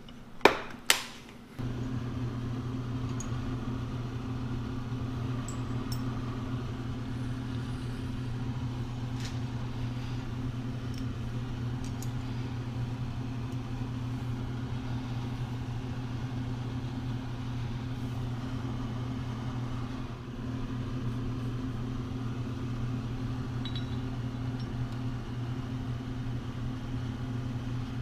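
The wooden lid of a case of steel parallels claps shut with two sharp knocks. A steady low electric-motor hum then runs on, with a few faint clicks of metal parts being handled.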